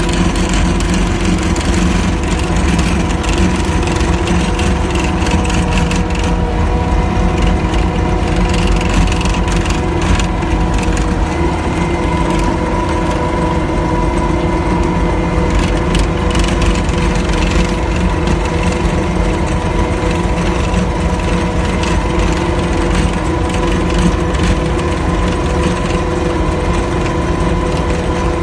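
A steady engine or motor running at a constant speed: a loud, even drone with several fixed tones and no change in pitch.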